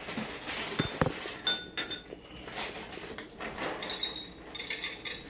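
Hostess Honey Bun cereal being poured from its box into a clear bowl: the small hard pieces clatter and clink against the bowl in many quick ticks.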